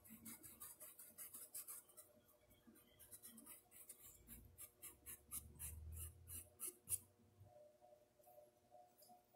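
Faint, quick scratchy strokes of a paintbrush on a porcelain cup, about three or four a second, dying away after about seven seconds.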